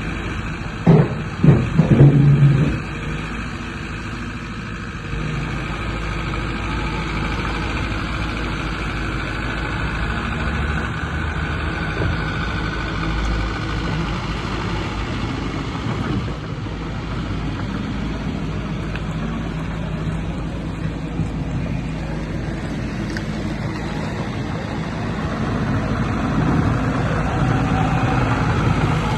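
JCB 86C-1 midi excavator's diesel engine running steadily, with a few loud knocks about one to two seconds in; the engine grows somewhat louder near the end.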